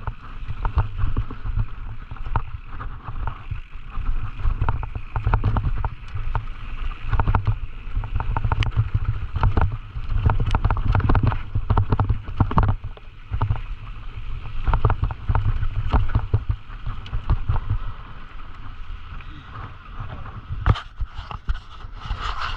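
Downhill mountain bike clattering over a rough trail at speed: wind buffets the microphone with a steady low rumble, and frequent sharp knocks and rattles come from the bike as it takes the bumps.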